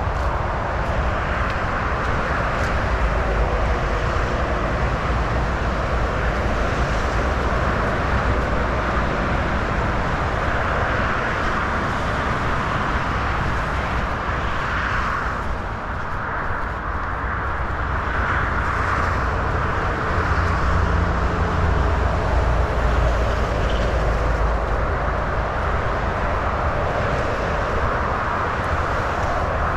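Steady outdoor noise: an even hiss over a low rumble, dipping briefly about halfway through.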